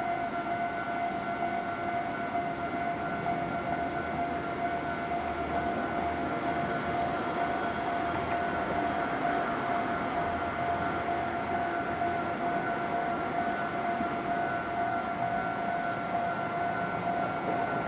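Japanese level-crossing warning bell ringing steadily: one high tone with overtones, over a background rumble that swells slightly midway.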